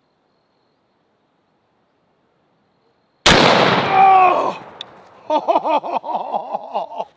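About three seconds of near silence, then a single shot from a 4 bore falling-block rifle firing its 1-inch, 2,150-grain bullet, with a long decay. A man shouts "oh" and carries on making voice sounds after the shot.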